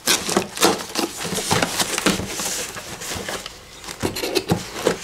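Cardboard parcel being handled while its duct tape is picked at and slit with a small pocket knife: a quick run of scratches, taps and rustles of cardboard and tape, with a short hiss about halfway through.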